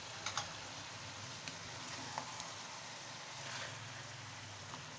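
Chicken pieces, onions and tomatoes sizzling steadily in a metal karahi while a wooden spoon stirs them, with a few light clicks of the spoon against the pan.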